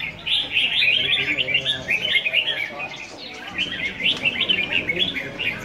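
Red-whiskered bulbuls singing: quick, bright chirping phrases that run almost without a break, with a short lull about three seconds in.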